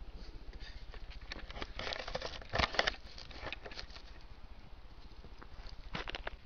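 Close handling noise at a trail camera: scattered clicks, taps and rustles as a person handles the camera up close. The loudest cluster comes about two and a half seconds in, with another short cluster near the end.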